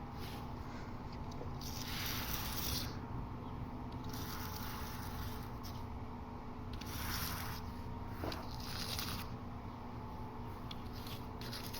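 Razor blade scraping dust across a car's painted surface in repeated strokes, with a steady low hum beneath.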